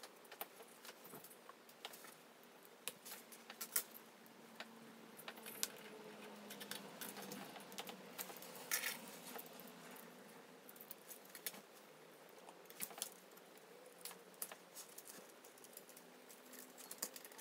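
Small plastic parts of a 1:6 scale M82A1 model rifle clicking and tapping as they are handled and fitted together, with a louder click near the middle.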